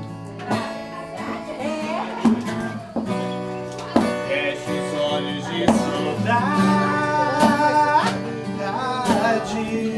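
Acoustic guitar music: a song with plucked and strummed guitar and a melodic line over it.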